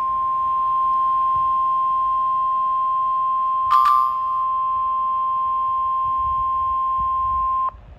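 NOAA Weather Radio warning alarm tone: a single steady beep near 1 kHz, sounded before a warning is read, which cuts off suddenly near the end. A brief crackle of static breaks in about halfway through.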